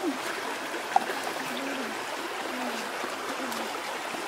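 Shallow rocky stream running steadily, with one sharp click about a second in.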